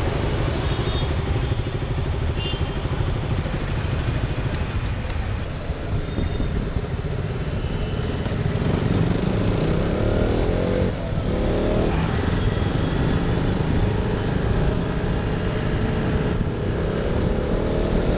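KTM Duke 200's single-cylinder engine running as the motorcycle rides through traffic, over a steady low rumble. Its revs climb in rising sweeps about halfway through and again near the end as it accelerates.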